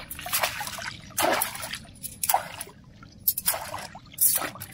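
Shallow lake water splashing and sloshing as long fishing-rod sections are swished through it at the bank, in short bursts about once a second.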